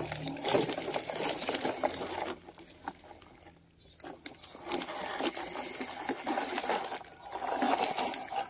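Plastic toy trucks rolling past over gravel and dirt, their wheels crunching and the plastic bodies rattling, one truck after another with short lulls between passes.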